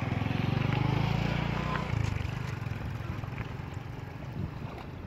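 A small engine running nearby, loudest in the first two seconds and then fading away.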